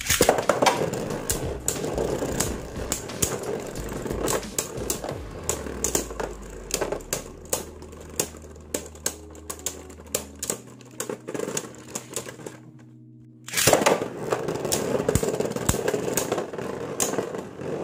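Two Beyblade Burst spinning tops launched into a clear plastic stadium, clacking against each other and the stadium wall in quick, irregular hits as they spin. The loudest clatter is at the launch, and the sound briefly drops out about three-quarters of the way through.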